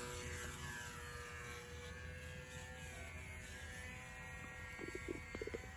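Electric motor and propeller of a small foam RC plane buzzing at high throttle on take-off. The whine eases slightly lower and fades as the plane climbs away.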